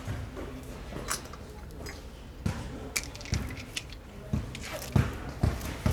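Metal hand tools clicking and knocking against metal in a string of separate sharp strikes, some a second or more apart and some closer together.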